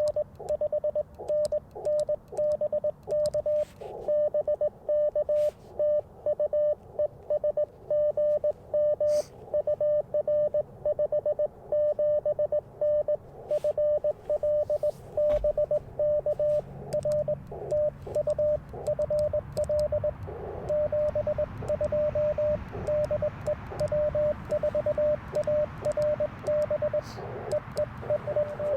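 Morse code from the Icom IC-705 transceiver: a steady single tone keyed on and off in quick dots and dashes. Radio hiss grows beneath it in the second half.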